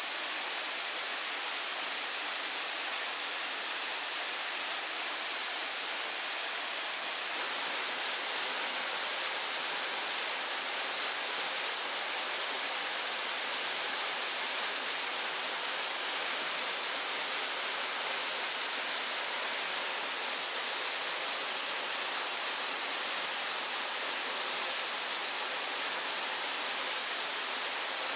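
Steady, even hiss of rushing water.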